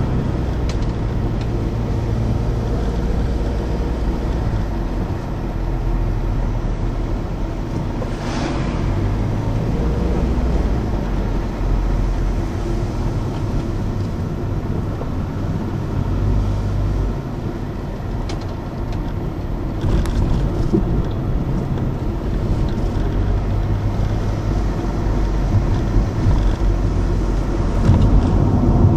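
A car driving, heard from inside the cabin: a low engine drone over tyre and road noise, its note shifting every few seconds as the car slows and picks up speed.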